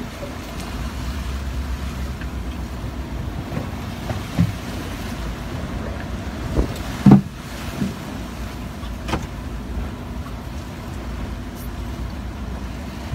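Steady wind-and-water rumble of a boat running through choppy sea, with a few thumps; the loudest comes about seven seconds in.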